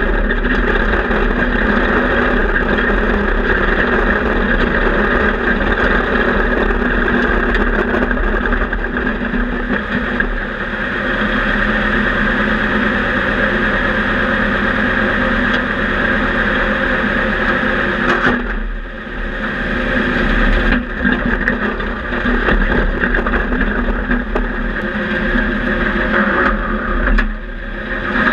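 Panzer I tank's engine running loudly, heard from inside the steel hull, with brief drops in level about 10, 18 and 27 seconds in.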